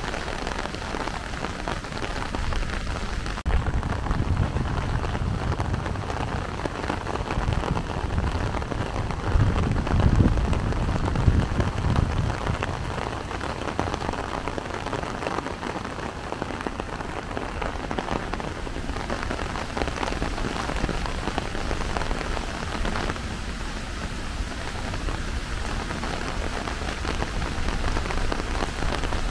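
Steady rain falling and pattering on surfaces, with a low rumble swelling between about four and twelve seconds in.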